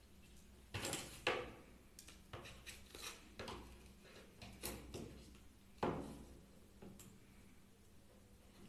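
Handling noise of a Redmi 3S Prime phone being taken apart: a series of sharp plastic clicks and short scrapes as its back cover is pried loose. The loudest clicks come about a second in and again near six seconds.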